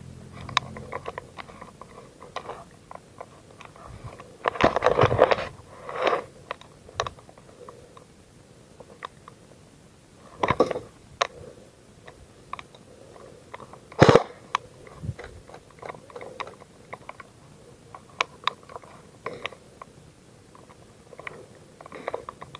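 Close crunching and clicking from a player's movement and gear, with a dense crunching stretch about five seconds in and two sharp cracks about ten and fourteen seconds in.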